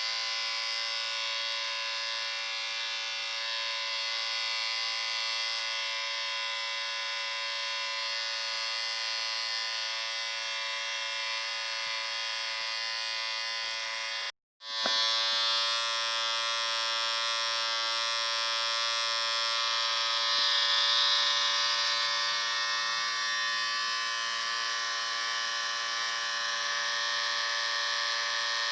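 Electric shaver motor buzzing steadily. About halfway through it cuts out for a split second, then comes back slightly louder with a slightly different tone.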